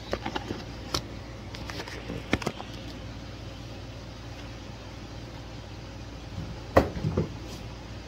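Handling noise: a scatter of short knocks and clicks in the first couple of seconds, then a louder pair of thumps about seven seconds in as a cardboard box is lifted and tipped, over a steady low hum.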